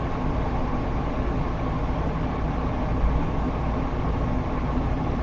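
Through-wall air conditioner running with a steady low rumble and hum.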